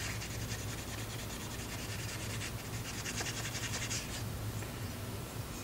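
Quick, rhythmic scratching of a hand rubbing against a graphics card's aluminium heatsink, louder for a moment after about two and a half seconds and stopping about four seconds in.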